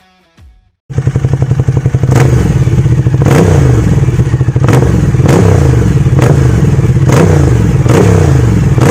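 Ducati Diavel motorcycle engine on its stock exhaust, running very loud and being blipped repeatedly, about once a second, with the pitch rising and falling on each rev. It comes in suddenly about a second in.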